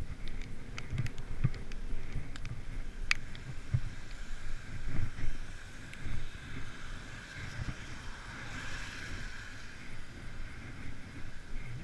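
Wind buffeting the microphone with wet-road hiss while riding a bicycle in the rain; a few sharp clicks in the first seconds, and the hiss swells and fades about three-quarters of the way through.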